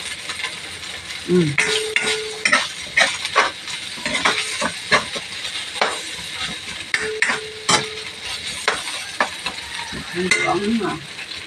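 A spatula scraping and tapping against a stainless-steel honeycomb wok as tuna sisig is stirred, in short irregular strokes over a steady sizzle of the mix frying.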